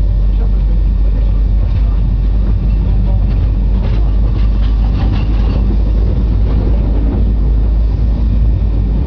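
Narrow-gauge train carriage rumbling steadily along the track, heard from on board, with a run of faint clicks from the wheels in the middle.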